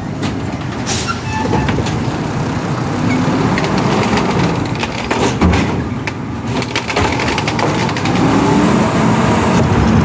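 Side-loading garbage truck running close by, its engine going steadily, with a few knocks.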